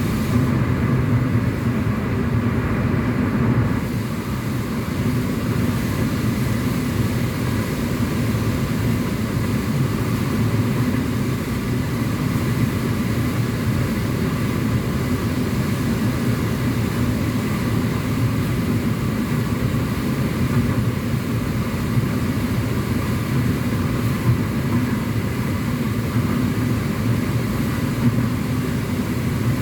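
Car driving at a steady speed, heard from inside the cabin: a continuous low rumble of road and engine noise that holds an even level.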